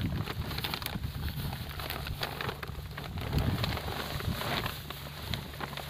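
Rustling and scattered clicks of a woven plastic sack and a nylon fish net being handled, over a low, uneven rumble like wind on the microphone.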